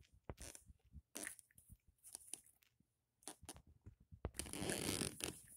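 Handling noise of dolls being moved close to the microphone: scattered light clicks and taps, and a longer rustle about four and a half seconds in.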